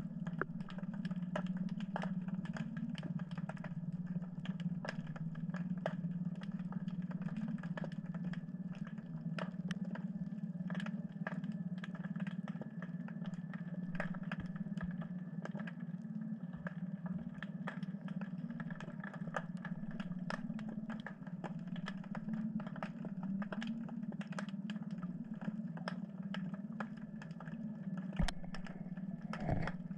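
Underwater ambience picked up by a camera: a steady low hum with sharp clicks scattered throughout, and two low thumps near the end.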